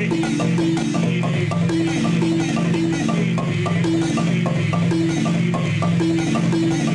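A wooden gourd-resonated xylophone (kogiri) played with two mallets: a fast, even stream of struck wooden notes over a low bass figure that repeats every second or so.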